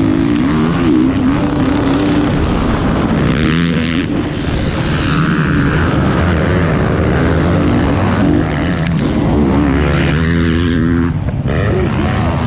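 Motocross bike engines racing close by, the nearest one revving up and dropping back over and over as the throttle opens and closes, with a brief dip in the sound a second or so before the end.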